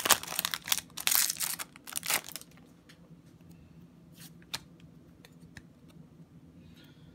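Foil booster-pack wrapper crinkling and being torn open by hand, a loud crackle lasting about two and a half seconds. Then a few faint clicks as the trading cards inside are handled.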